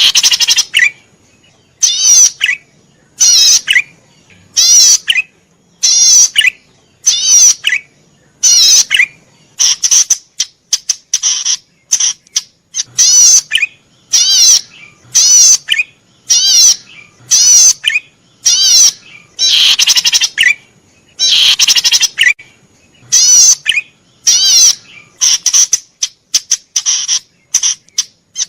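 Cici padi merah, a cisticola, singing nonstop: short, harsh, rapidly trilled calls repeated over and over, about once a second.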